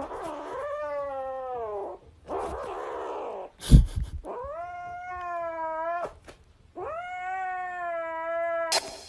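Kitten yowling in four long, drawn-out calls, each held for a second or two. A single sharp knock partway through is the loudest sound.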